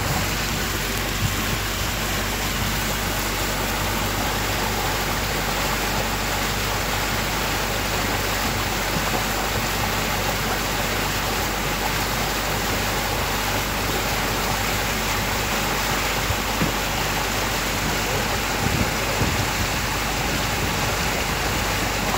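Steady noise of a motorboat under way: a low engine drone beneath a constant rush of water and air.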